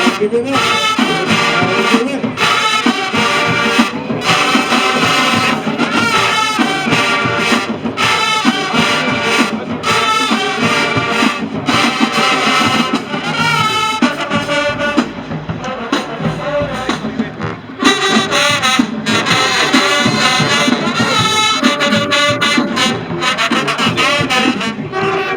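Marching band's brass section playing a loud tune in short phrases, trombones and trumpets prominent. It drops to a softer passage a little past the middle, then the full band comes back in.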